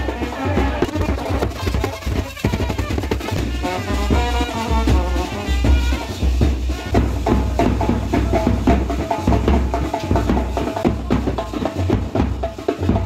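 Live Indian wedding brass band playing a fast dance rhythm: a big bass drum thumping under rapid drum strokes, with a melody line standing out above the drums in the middle.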